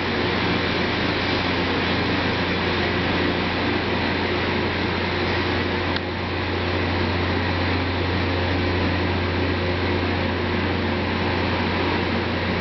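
Rail grinding train working the track: a steady grinding rush from its stones on the rails over a constant low drone.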